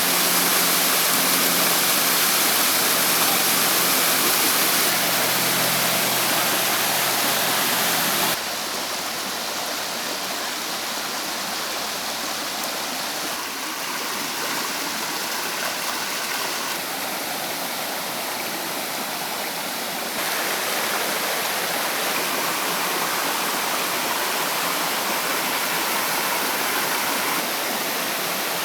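Waterfall rushing: a steady roar of falling water. It drops abruptly in loudness and brightness about eight seconds in, then rises again around twenty seconds.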